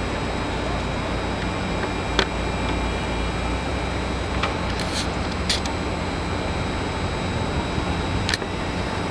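Airbus A320neo jet engines running at taxi idle: a steady rumble and whine with several constant high tones. A few short sharp clicks sound over it.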